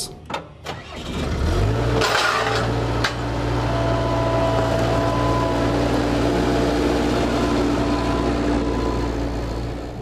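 Bobcat 773 skid-steer loader's diesel engine coming up to speed about a second and a half in, then running steadily as the loader drives and skid-turns.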